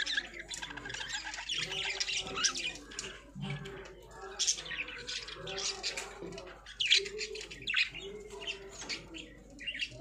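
Budgerigars chattering and warbling without a break, mixed with sharp squawks; the loudest squawk comes about seven seconds in.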